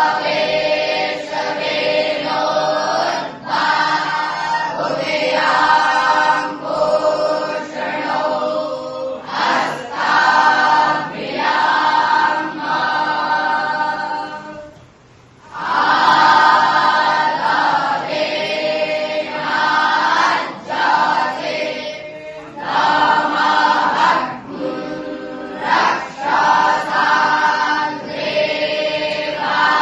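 A group of young Brahmin students chanting Vedic mantras together in unison, in long sung phrases, with a brief pause about halfway through.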